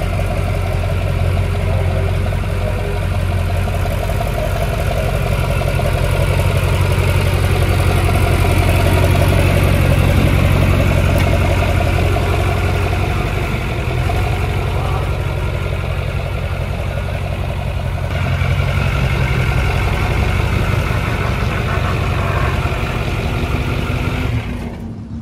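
Duramax diesel engine in a classic GMC pickup race truck idling steadily.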